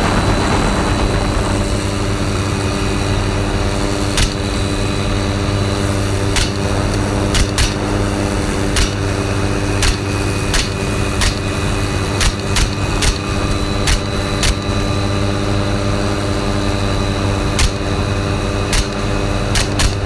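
Helicopter turbine and rotor running steadily, heard from on board. Over it come about twenty sharp cracks at irregular intervals, starting about four seconds in, the rifle shots of hog hunting from the air.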